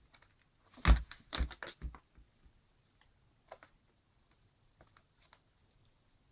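A kitten's claws and body scrabbling and knocking against a plastic laundry basket as it wrestles a hanging toy: a quick run of sharp clicks and scrapes about a second in, then a few scattered single clicks.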